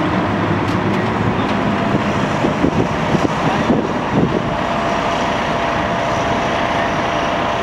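Engine of a vintage open-cab fire engine running as it rolls slowly past, with other vehicle engine noise behind it; a few uneven, louder rumbles come about two to four seconds in.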